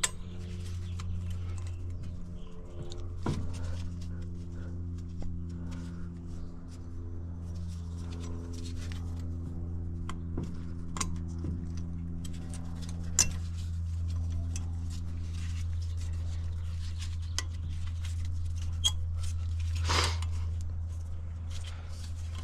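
Scattered metal clicks and knocks as a new brake pad is worked into the caliper bracket until it seats, with a sharper knock about 13 seconds in. A steady low hum continues underneath.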